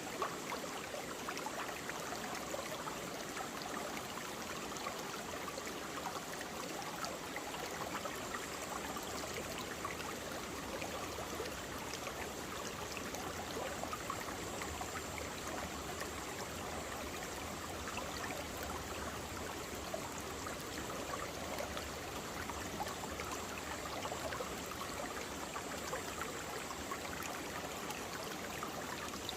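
Mountain valley stream flowing and babbling over rocks, a steady rush of water with fine trickling detail.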